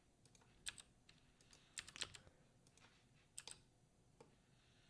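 Faint, scattered keystrokes on a computer keyboard: a handful of separate sharp clicks a second or so apart.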